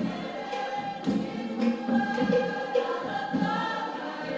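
A choir singing together in several parts, the voices holding notes of about half a second each.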